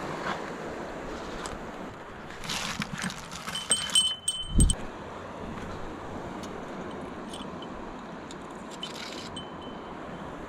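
A fishing-rod tip bell jingles in a short flurry a few seconds in, ending with a low thump, and rings faintly once more near the end, over steady surf. This is the sign of a fish pulling at the line.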